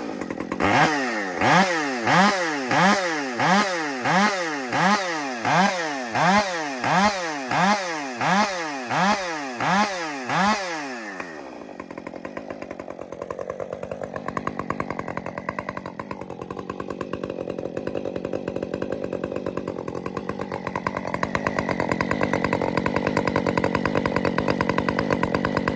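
Husqvarna 562 Mark II two-stroke chainsaw with an aftermarket Steadfast Forestry Products exhaust, revved in quick throttle blips a bit over once a second for about eleven seconds, then dropping to a steady idle that grows slightly louder toward the end.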